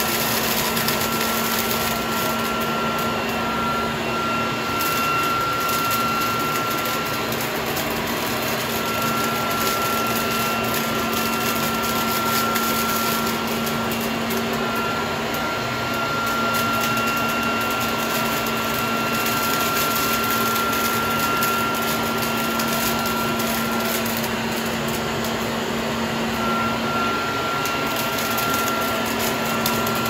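Vacuum cleaner running steadily, with a low hum and a high whine that drops out now and then, as it sucks up paper confetti and small beads, which crackle as they are drawn into the nozzle.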